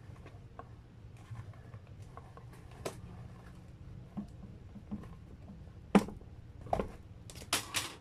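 Cardboard cake box being handled and pushed open: light rubs and taps, then a sharp knock about six seconds in and a quick clatter of knocks near the end.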